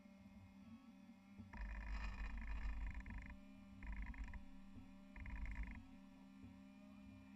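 Small electric motor of a radio-controlled rescue boat driving its propeller in three short bursts, the first about a second and a half long and the other two brief, over a steady low hum.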